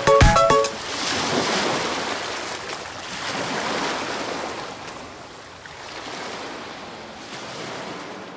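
Sea waves washing onto a beach, the surf swelling and falling away about every two to three seconds and fading out near the end. The last beats of music stop under a second in.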